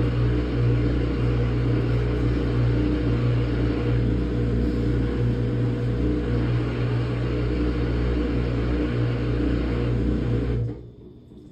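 Samsung top-load washing machine running a quick wash cycle: a steady loud hum with a hiss above it, which cuts off abruptly near the end.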